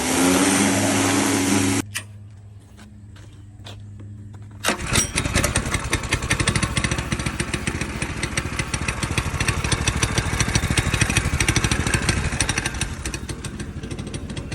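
Go-kart's small engine: a loud steady stretch for the first two seconds, a quieter lull, then from about five seconds in the engine runs with rapid, even firing pulses for the rest of the time.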